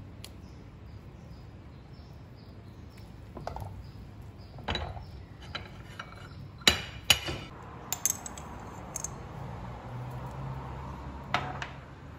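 A slotted ladle knocking and clinking against a stainless-steel wok while stirring stock, a scattered run of sharp clinks, the loudest two close together in the middle.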